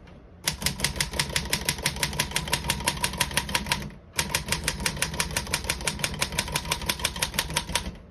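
1933 Royal 10 manual desktop typewriter being typed on in two fast, even runs of about eight or nine key strikes a second, with a brief pause about four seconds in.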